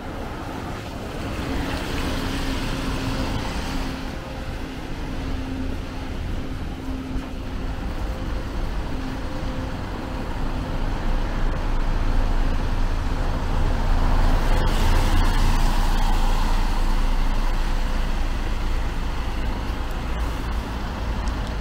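Road traffic on a city street: a steady hum from a large vehicle's engine, then a heavy low rumble that swells and is loudest past the middle as vehicles pass close.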